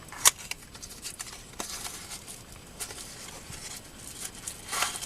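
Hands handling folding knives and their packaging: a sharp click about a quarter of a second in, then scattered light clicks and rustles, with louder rustling near the end.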